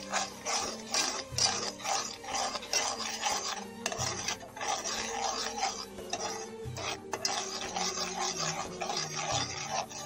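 Metal spoon stirring quickly in a metal saucepan, scraping the bottom in rapid repeated strokes, about three a second, as sugar melts into caramel.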